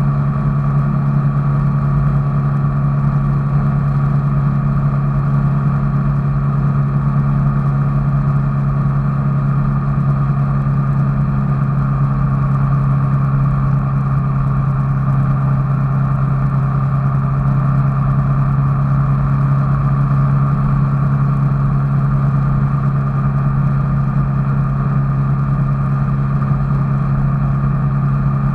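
A vehicle engine running at a constant speed: a steady low drone with a fainter higher whine above it, neither changing in pitch or level.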